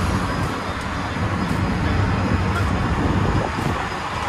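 Auto-rickshaw underway: the steady drone of its motor with road and wind noise coming in through the open sides of the cabin.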